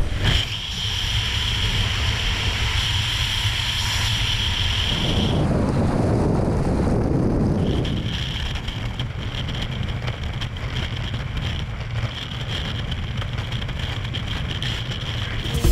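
Wind rushing hard over a skydiver's helmet-camera microphone, first at the open door of a Short SC.7 Skyvan in flight and then in freefall, with a steady high whistle through most of it. The rushing changes character about five seconds in as the jumpers leave the aircraft.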